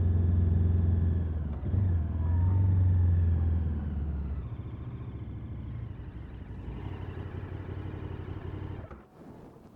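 KTM 1290 Super Adventure S motorcycle's V-twin engine on its stock exhaust, running loud with a deep note, easing off about four seconds in and running quieter until the sound falls away near the end.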